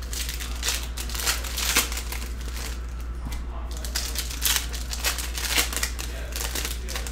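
Foil trading-card pack wrappers crinkling and tearing as packs are opened by hand: a run of irregular crackly rustles with several louder crackles.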